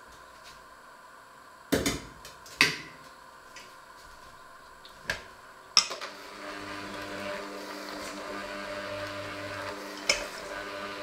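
A few sharp knocks and clunks, then from about six seconds in a white electric hand mixer runs steadily, its beaters churning a thick mixture in a stainless steel bowl, with a knock of the beaters against the bowl near the end.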